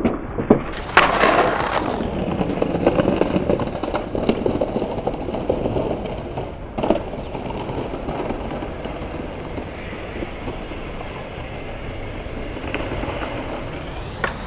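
Skateboard landing a flip trick with a loud sharp clack about a second in. The wheels then roll over brick pavers with fast clicking at the joints. A single knock comes about seven seconds in, and after that a low, steady street hum.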